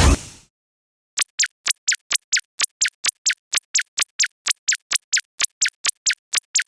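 A quick, even run of short, high pips, about four and a half a second, each sliding down in pitch: a cartoon-style sound effect. It begins about a second in, just after a train sound cuts off.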